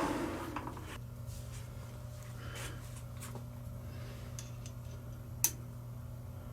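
A machine tool winding down in the first second, then a steady low hum with faint light ticks of metal being handled, and one sharp click about five and a half seconds in.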